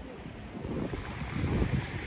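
Wind buffeting the phone's microphone in irregular low gusts, with the hiss of surf washing on the beach swelling about a second in.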